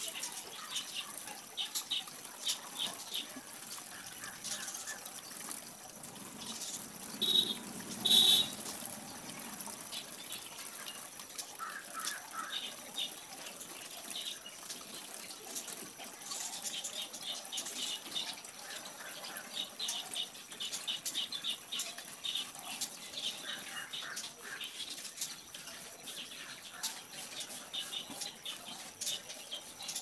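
An Apsara 4B graphite pencil scratching on paper in short sketching strokes, with a couple of louder brief sounds about seven to eight seconds in.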